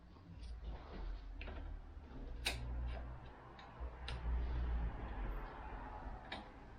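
Irregular light metallic clicks and taps of hand tools working at a broken-off bolt, over a low rumble of handling, with one sharper click about two and a half seconds in.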